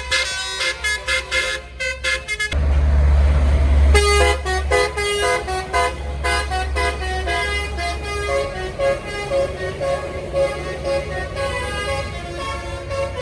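Telolet melodic bus horn playing a quick tune of stepped notes. About two and a half seconds in, a bus's deep engine rumble with a hiss cuts in, and the engine keeps rumbling low under the horn tune that resumes a second and a half later.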